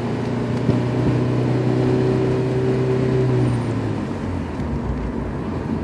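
Honda S2000's four-cylinder engine pulling steadily in gear, heard from inside the cabin over road noise. The revs fall about three and a half seconds in.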